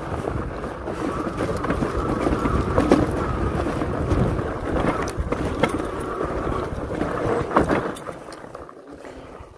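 Philodo two-wheel-drive fat-tire electric bike riding over rough desert ground: a steady rolling rumble with a faint whine and several sharp knocks and rattles, easing off about eight seconds in.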